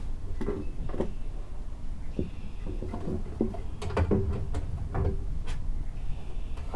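Scattered light knocks and clicks as a cordless circular saw and its metal track saw guide are handled and positioned on a plywood sheet, the saw not running, over a steady low rumble.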